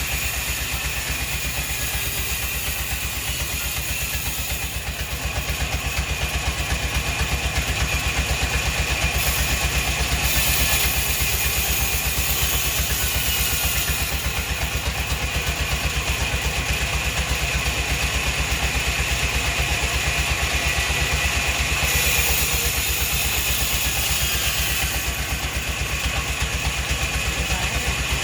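A machine's engine running steadily with a fast, even pulse, under a hissing layer that shifts every few seconds.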